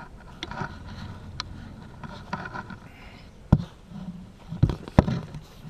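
Close handling noise: low rustling of clothing and movement, broken by three sharp knocks in the second half.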